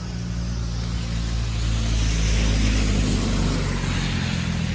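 A light truck drives past on a wet road: a low engine drone and tyre hiss that swell to a peak about halfway through, then ease as it moves away.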